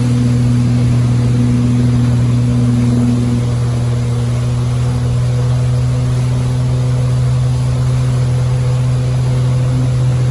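Tow boat's engine running steadily at towing speed, a constant low hum, under the rushing hiss of wake water and wind.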